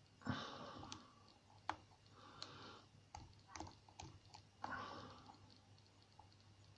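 Faint metallic clicks and short scrapes of a lock pick and tension wrench working the pins of a pin-tumbler lock, a few irregular clicks a second apart.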